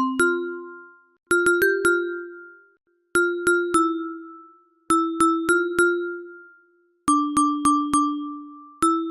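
Phone call ringtone: a short melody of three or four quick notes in a bell-like mallet tone, like a glockenspiel or marimba, each note fading away. The phrase repeats about every two seconds.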